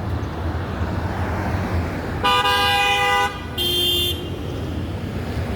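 A vehicle horn honking twice, a blast of about a second followed shortly by a shorter one, over steady traffic rumble.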